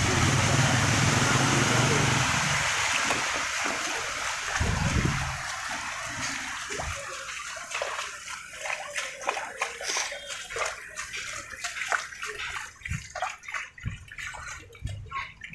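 Water splashing and dripping: a passing vehicle's noise fades away over the first two or three seconds, then irregular drips and small splashes of rainwater go on.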